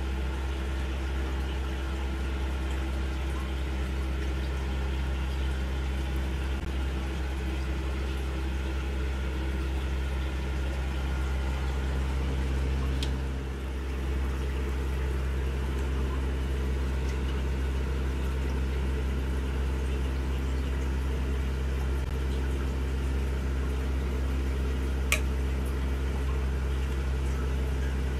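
Aquarium filter and air bubbler running: a steady low electric hum with bubbling, trickling water. A single sharp click comes near the end.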